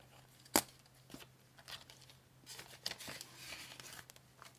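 A sharp click about half a second in, then the crinkle and rustle of clear plastic binder envelopes being turned over in a cash envelope binder, from about two and a half seconds in.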